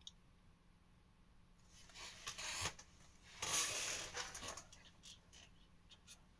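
Handling noise: rustling and a few light clicks as album cases are moved about, with two longer rustles in the middle and short clicks near the end.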